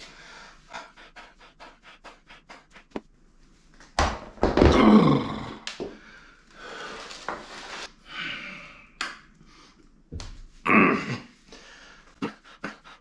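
A man panting and grunting with effort while doing shrugs with heavy plate-loaded dumbbells. About four seconds in comes a loud groan falling in pitch. Near eleven seconds a low thump is followed by a hard exhale, with quick light clicks between the breaths.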